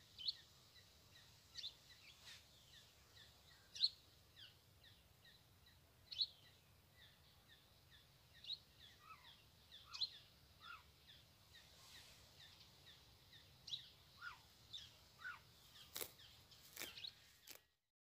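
Small birds chirping: many short, high chirps that slide down in pitch, scattered through the whole stretch. A few sharp clicks come near the end, and then the sound cuts off.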